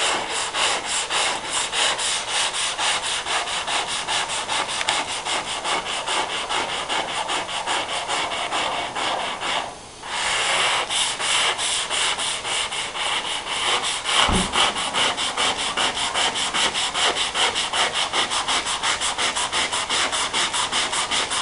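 Sandpaper on a closed-cell foam hand sanding block, rubbed over a car body panel in rapid, even back-and-forth strokes. The strokes stop briefly about ten seconds in, and there is a low bump around fourteen seconds.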